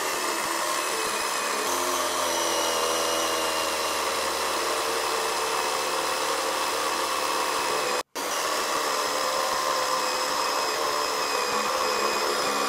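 Greenworks 10-inch cordless electric chainsaw running under load, its motor whining steadily as the chain bores straight into a dry fir log in a plunge cut. The sound drops out for an instant about eight seconds in.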